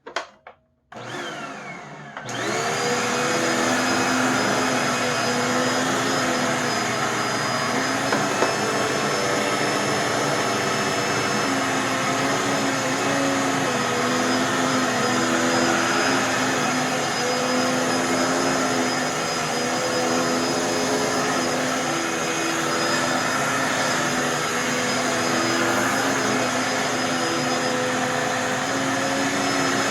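Dirt Devil Purpose For Pets 140000 upright vacuum: a few clicks, then about two seconds in the motor switches on and whines up to speed. It then runs steadily with the brush roll agitating the carpet pile, its pitch wavering slightly as it is pushed along.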